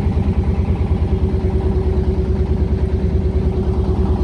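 Small riverboat's engine running steadily under way: a low drone with a fast, even pulse.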